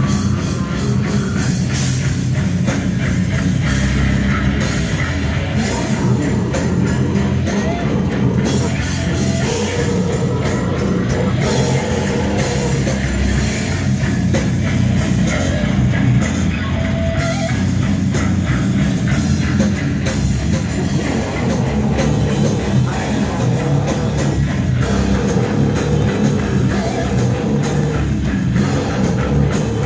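Heavy metal band playing live: distorted electric guitars, bass and drum kit, loud and dense without a break.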